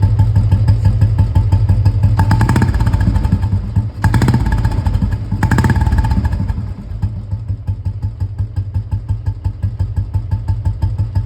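1980 Royal Enfield Bullet 350's single-cylinder engine running through a newly fitted VW Indori aftermarket silencer, with an even, loud exhaust beat. It is revved three times in the first six seconds, then settles to a quieter, steady idle.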